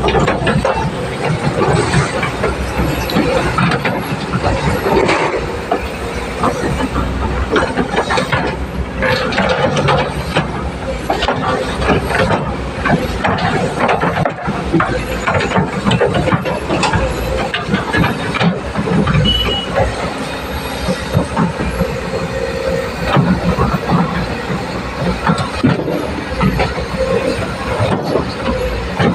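Excavator at work: its engine running steadily under frequent knocks and clatter.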